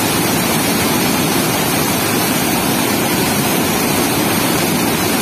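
Turbulent whitewater pouring through a weir's sluice gate, rushing loudly and steadily.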